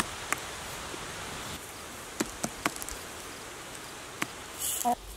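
A chicken's beak pecking at feed kernels on paper sheets laid over a wooden board. It gives sharp single taps: one early, three in quick succession about two seconds in, and one more about four seconds in, over a steady background hiss.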